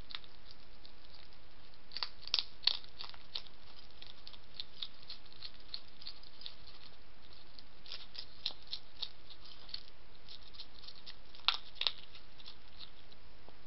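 Wild European hedgehog eating from a dish: a quick run of small crisp crunching and smacking clicks as it chews, with a few louder crunches about two seconds in and again near the end, over a steady hiss.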